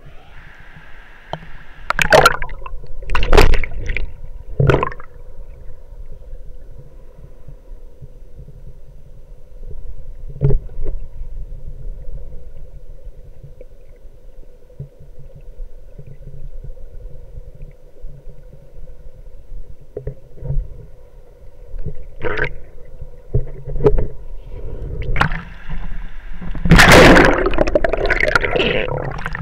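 Water at a waterfall, heard muffled through an action camera's waterproof case: a steady low rumble, broken by several sharp knocks and splashes and a longer, loud splash near the end.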